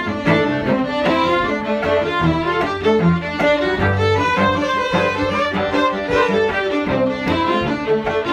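Small string ensemble of fiddles, five-string fiddle, viola and cello playing an Irish fiddle tune: a bowed melody moving several notes a second over longer low cello notes.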